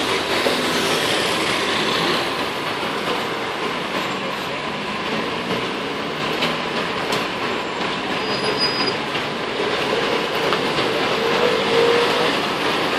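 Two electrically swung church bells ringing together in a full peal, heard under loud, steady street traffic noise.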